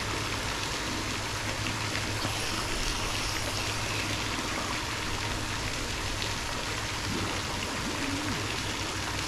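Steady rush and trickle of moving water with a low hum underneath.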